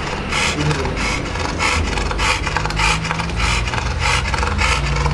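Large pit bull-type dog panting rapidly with its mouth open, close to the microphone, in quick raspy breaths about three times a second.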